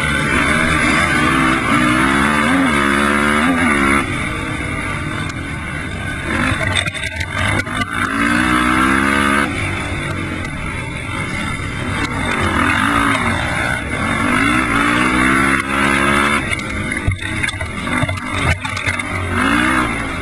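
Honda TRX450R quad's single-cylinder four-stroke engine running hard at full throttle, its pitch climbing again and again as it pulls through the gears, easing off briefly a few times between pulls.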